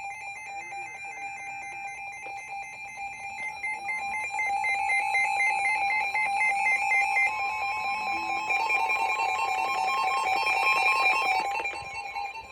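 Emergency Alert System alert tones: several steady electronic alarm tones sounding together, with a fast pulsing alarm layered over them. It gets louder about four seconds in and dies away near the end.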